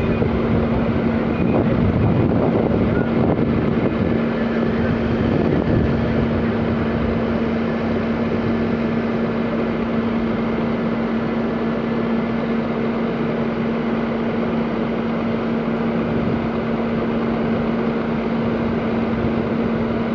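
Fire engine's engine running steadily with a constant, unchanging hum.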